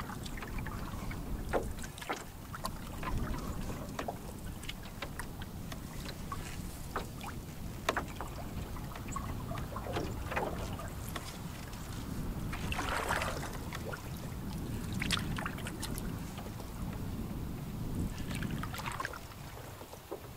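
Canoe paddle strokes in calm water: the blade swishes through the water every few seconds, and water drips and trickles between strokes. Wind rumbles on the microphone underneath.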